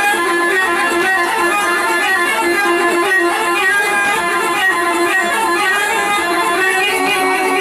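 Loud amplified dabke dance music led by a fast run of short plucked-string notes.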